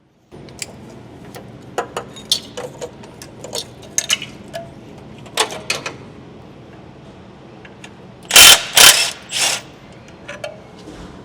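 Hand tools and metal engine parts clicking and knocking irregularly during a 2JZ top-end teardown, with three louder clattering bursts in quick succession about two-thirds of the way through.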